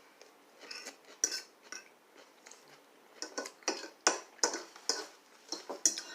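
Light, irregular clicks and clinks of cutlery and food against dishes while eating. They are sparse at first and come faster from about three seconds in.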